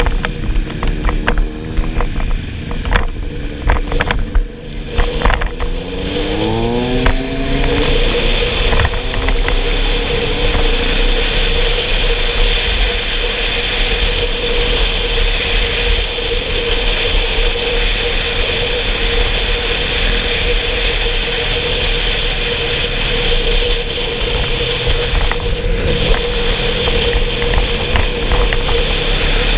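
Motorcycle engine accelerating hard, its pitch rising and dropping back several times as it changes up through the gears. It then settles into steady running at motorway cruising speed under heavy wind rush on the microphone.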